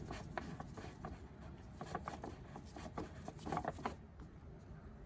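Faint scattered small clicks and light rubbing, with a cluster of slightly louder taps about three and a half seconds in.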